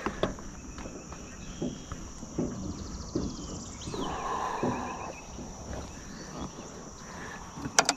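Insects making a steady high-pitched drone, with a few light knocks.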